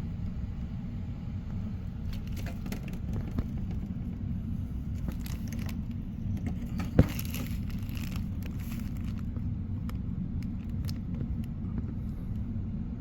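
Scattered clicks and rustles of handling over a steady low rumble, with one sharp click about seven seconds in: the cover and insulation of an electric water heater's access opening being handled to look inside.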